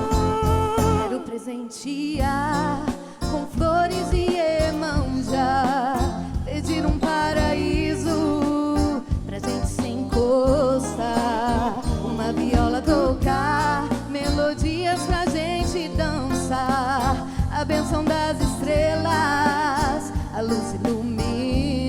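A song: a singer holding wavering notes with vibrato over instrumental accompaniment, with a short break in the sound about two seconds in.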